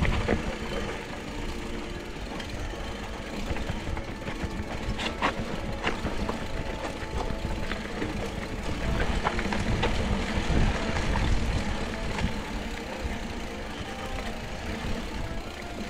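Mountain bike riding down a dirt trail: a steady rumble of tyres on the ground, with scattered clicks and knocks as the bike rattles over bumps.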